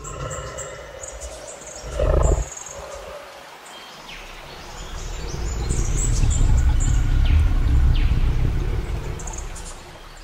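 Outdoor ambience with birds chirping in short falling notes over a deep, low rumble that swells through the second half. A short, loud call comes about two seconds in.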